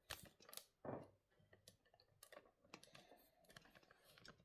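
Faint, irregular light clicks and taps, a few each second, with longer gaps between them.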